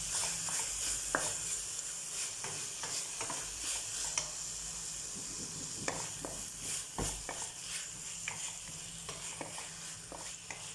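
Beef sizzling in oil in a frying pan with sautéed tomato and shrimp paste, with a steady high sizzle and scattered clicks and scrapes of a utensil stirring against the pan.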